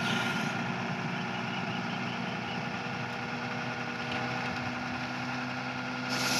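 Ashok Leyland tipper lorry's diesel engine running steadily while it drives the hydraulic hoist that tips up the soil-laden body. A short hiss near the end.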